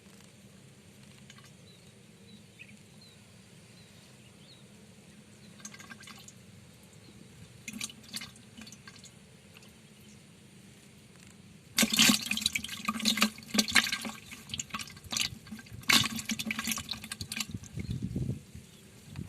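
Water splashing and sloshing in irregular bursts during the second half, after a few faint clicks earlier on.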